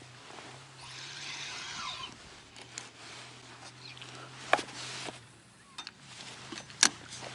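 Feeder rod and spinning reel being worked through a cast: a brief rustle about a second in, then two sharp clicks of the tackle, the second one loudest near the end, over a faint steady low hum.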